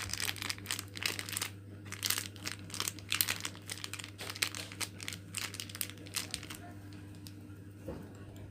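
Coffee sachet wrappers crinkling in quick, irregular crackles as they are handled and woven into a bag. The crinkling stops about six and a half seconds in, leaving a steady low hum.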